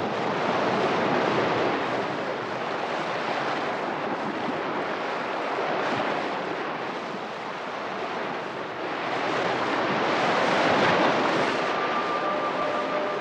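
Gale wind and rough seas rushing and breaking around a sailing trimaran's hulls, a steady rush that swells and eases in long surges. Near the end a few held musical tones come in.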